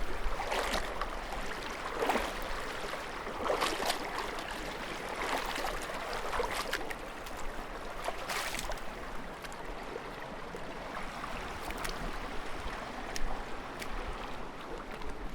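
Footsteps wading through water: each stride is a slosh and splash, about one every second and a half, growing fainter in the second half.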